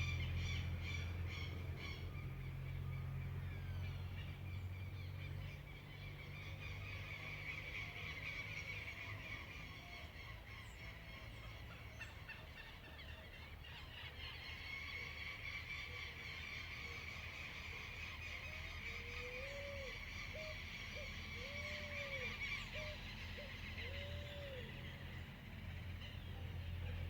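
Morning bird chorus: many small birds twittering and singing together, with a series of short, low calls from a larger bird joining about two-thirds of the way through. A steady low rumble runs underneath.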